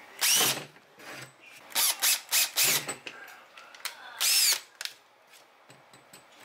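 Cordless drill boring holes through the plastic lid of an ammo box, run in short trigger bursts. The motor revs briefly near the start, pulses several times in quick succession around two to three seconds in, and runs again about four seconds in.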